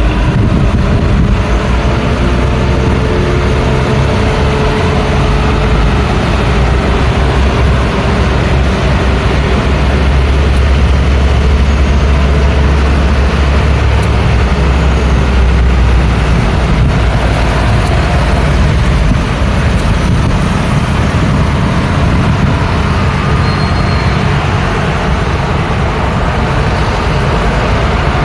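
Continuous busy road traffic: cars, trucks and buses driving past with engine and tyre noise. A deep heavy-engine rumble is loudest about a third of the way in.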